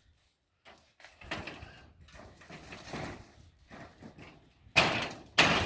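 Sheets of tin roofing being shifted on a roof, scraping and knocking unevenly, with two loud sudden bangs near the end.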